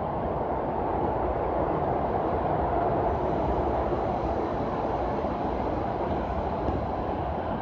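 Steady rumbling din of a large railway station hall, with no single event standing out.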